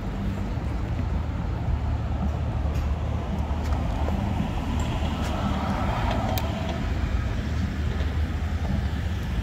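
City street traffic: a steady low rumble of vehicles, with one vehicle swelling up as it passes about halfway through.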